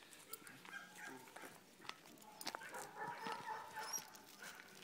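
A dog whining in a wavering, high-pitched whimper, louder from about two and a half seconds in.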